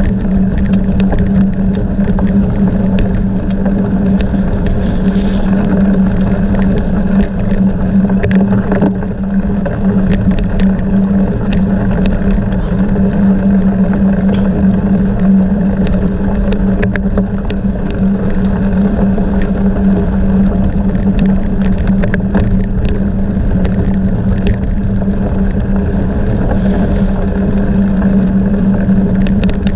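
Gravel bicycle rolling fast over a gravel road, heard from on the bike: a steady rolling rumble and wind on the microphone with a low hum, broken by frequent small rattles and clicks from the bike and stones.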